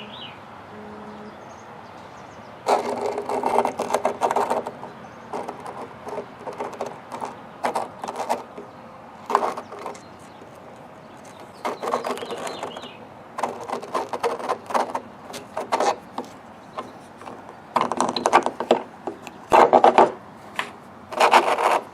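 Small hard parts being handled and worked by hand: irregular bursts of clicking, rattling and rubbing, each lasting a second or two, with short quiet gaps between them.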